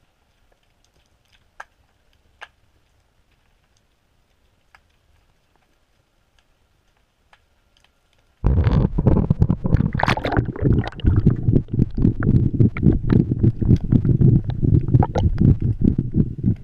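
GoPro in its waterproof housing underwater: near silence with a few faint clicks, then, about eight seconds in, a sudden loud, continuous rumbling and crackling as water and wind buffet the housing.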